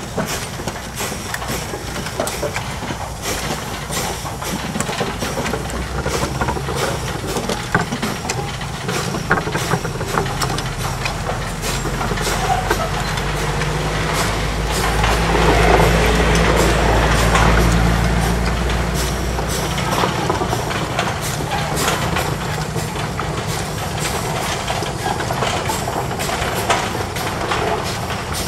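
Small narrow-gauge sugar-mill steam locomotive working slowly along field track, with irregular clanks and knocks of running gear and wagons. A low engine hum swells and fades in the middle.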